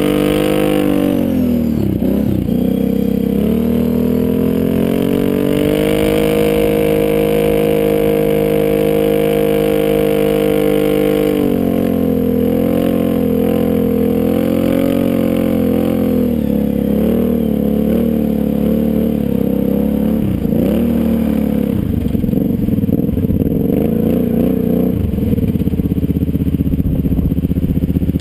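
Sport ATV engine running hard under throttle as it climbs through sand: its pitch rises over the first few seconds, holds steady, drops about twelve seconds in, then rises and falls repeatedly as the throttle is worked.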